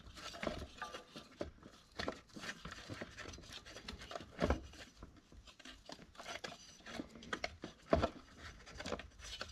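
Light handling sounds on a small two-stroke leaf blower: scattered clicks, taps and rubbing as rope is packed into the cylinder through the spark plug hole to lock the piston. A few sharper taps stand out, the loudest about eight seconds in.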